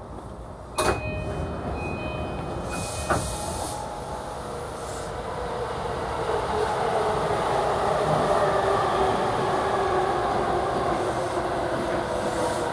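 Interior of a JR East E235-series electric train at a station: a sharp clunk, then a steady high electronic tone with short breaks and a hiss, typical of the doors closing. Then the traction motors whine slowly upward in pitch and the running noise grows as the train pulls away and accelerates.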